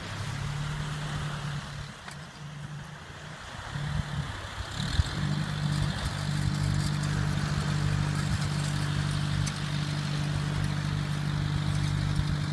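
Pickup truck engine held at steady revs under load as the truck sits stuck in soft beach sand. The revs ease off about two seconds in, then pick up again after a couple of knocks and hold steady.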